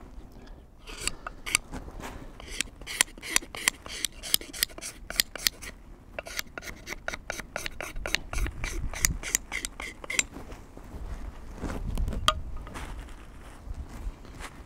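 Knife blade scraping the factory lacquer off a wooden hatchet handle in short, quick strokes, about two or three a second, with a couple of low rumbles in between.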